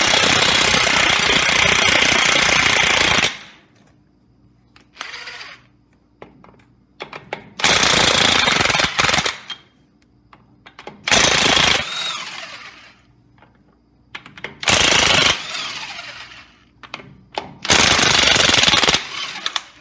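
Cordless impact wrench hammering left-hand-threaded lug nuts loose on a truck wheel. It goes in five loud bursts, the first about three seconds long and the rest one to two seconds, with short quiet gaps between them.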